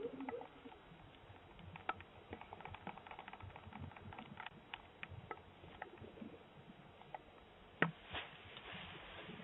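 Faint steady hiss from a Ring doorbell camera's microphone, with scattered small clicks and taps and one sharper click near the end.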